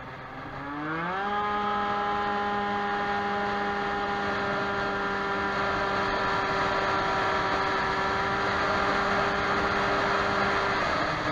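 Stage6 Racing high-end kitted two-stroke scooter engine (Baotian Falcon 50R, about 23 hp) opened up to full throttle: the pitch climbs sharply about a second in, then holds at one steady high rev before easing off near the end. The owner says the engine is running a bit rich in the heat.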